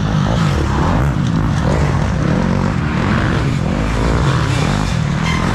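Dirt bike engines revving hard as riders pass on the trail, the pitch rising and falling again and again as they work the throttle.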